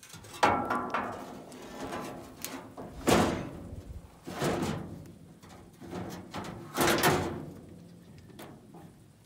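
Steel wire-mesh engine shielding being worked into place on an Allis-Chalmers HD21A dozer, clanking against the machine's steel frame. There are four loud clanks a second or more apart, with lighter knocks and rattles between.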